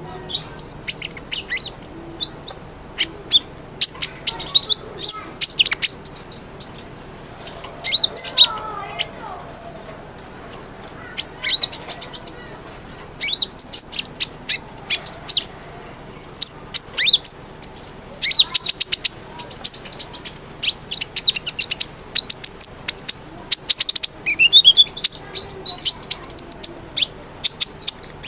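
Olive-backed sunbird singing: rapid, high-pitched chirps and trills with quick rising and falling whistled notes, nearly continuous with brief pauses.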